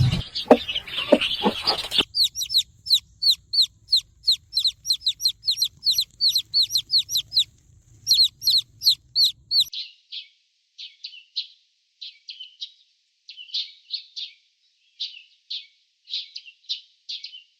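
Young chicks peeping: a fast, even run of high peeps that each fall in pitch, about three a second. From about ten seconds in the peeps change to shorter, rougher chirps at uneven intervals. A louder mix of sounds comes in the first two seconds.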